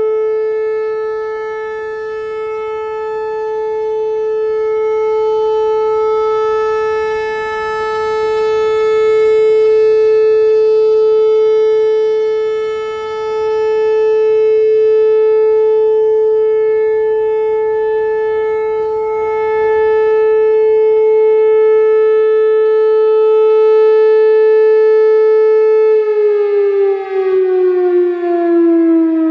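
Whelen Vortex R4 outdoor warning siren sounding a steady alert tone at about 435 Hz, with clipping typical of an early ESC-2020 controller's 435 Hz glitch. The tone swells and fades every five or six seconds as the rotating head sweeps past. A few seconds before the end it shuts off, and the pitch falls steadily as it winds down.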